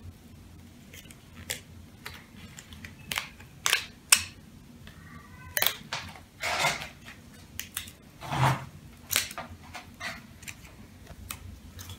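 Thin printed card clicking, snapping and rustling as a cardboard border strip is worked free and cut, in irregular sharp clicks with a couple of longer rustles.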